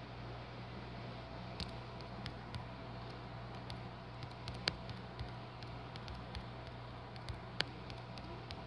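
Quiet room tone: a steady low hum and hiss, with a few faint sharp clicks, the loudest a little under halfway through and about two-thirds through.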